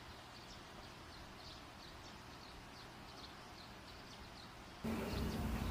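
Quiet room tone with faint, short high chirps repeating at fairly even intervals. Almost five seconds in, the background suddenly gets louder, and a steady low hum comes in.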